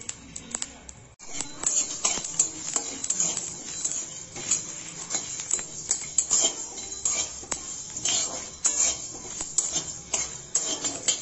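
A flat metal spatula scrapes and taps across the bottom of a dry metal kadai, stirring whole spices (cumin, coriander seeds, a dried red chilli) as they dry-roast without oil. The irregular scraping and clicking goes on throughout, with a short pause about a second in.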